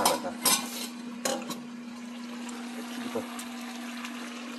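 Meat sizzling in a frying pan, with a few sharp clinks of a spoon against a metal bowl in the first second and a half, over a steady low hum.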